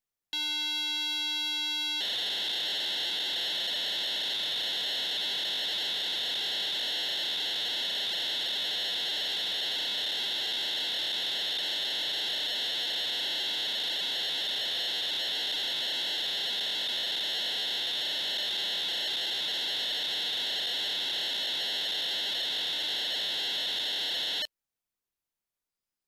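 Teenage Engineering PO-32 Tonic pocket drum synth playing a harsh sound: a buzzy tone for under two seconds, then a steady high hiss of noise that holds unchanged for about twenty seconds and cuts off suddenly.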